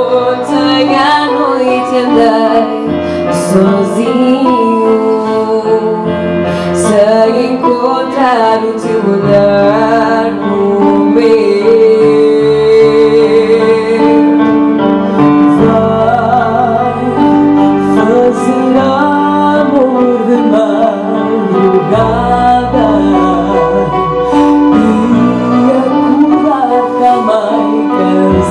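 A woman singing a slow song with instrumental accompaniment, her voice gliding and holding long notes.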